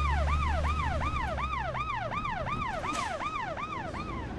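Police-car siren in a fast yelp, its pitch sweeping up and falling back about three times a second, over a low engine rumble that fades out about two seconds in.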